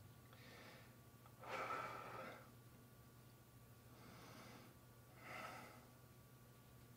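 A person breathing into the microphone, four soft breaths in and out, the loudest about two seconds in, over a faint steady low hum.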